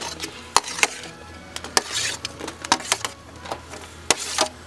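Metal tongs clinking and scraping against a metal sheet tray, about eight irregular sharp clicks, as vegetables are pushed off it onto foil, with soft music underneath.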